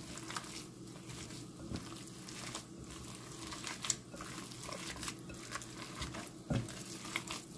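Bare hands squishing and kneading a raw meatloaf mix of ground meat and oats in a bowl: faint, irregular wet squelches and crackles.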